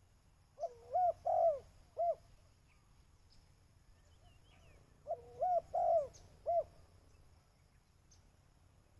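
Spotted dove cooing: two phrases of four or five rounded coos each, about four seconds apart.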